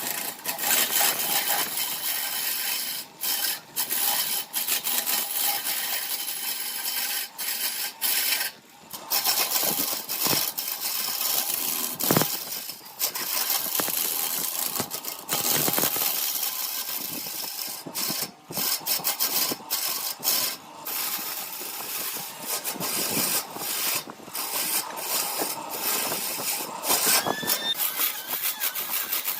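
A tool working a spinning workpiece on a woodturning lathe, giving a steady rasping scrape that stops and restarts many times in short breaks. There is a short squeal near the end.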